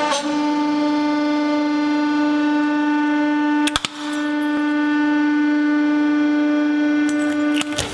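Hydraulic press running with a steady, loud whine as the ram descends. A glass incandescent light bulb bursts with a brief pop about four seconds in, and a few glass clicks follow near the end.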